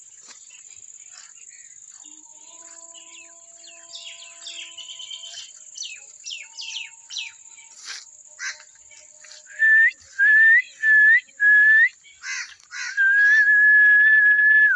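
Birds chirp over a steady, high insect buzz. From about ten seconds in, four short, loud whistles sound, each rising at its end, followed by one long held whistle that stops abruptly.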